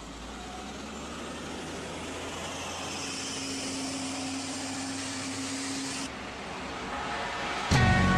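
Street traffic noise from a vehicle going by on the road, growing steadily louder, with a steady engine hum for a few seconds that cuts off suddenly. Music comes in loudly just before the end.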